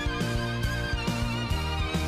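Background music: sustained melodic notes over a steady, regular beat.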